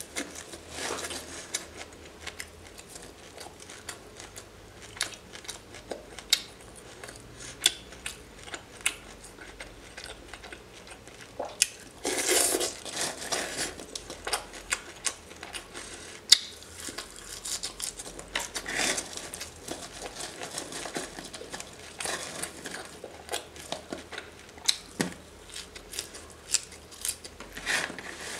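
Whole raw shrimp peeled by hand close to the microphone: many small crackles and snaps as the shell and legs are pulled and torn off, with a louder stretch of crinkling about twelve seconds in.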